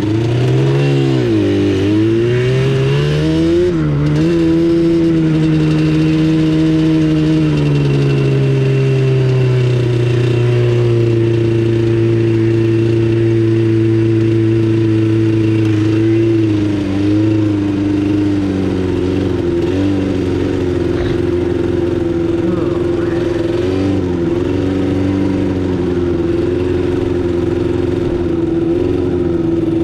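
An ATV engine accelerating, its pitch dropping and climbing again twice in the first few seconds as it shifts up, then running at a steady cruising speed.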